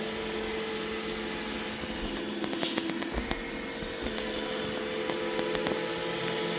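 iRobot Roomba E6 robot vacuum running, a steady motor hum with the rush of its suction, and scattered light clicks in the middle.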